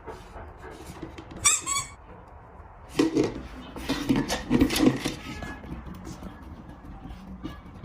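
Squeaker in a dog chew toy (a treat dispenser) squeaking when pressed: one short, sharp squeak about a second and a half in, then several louder squeaks with handling knocks about a second later.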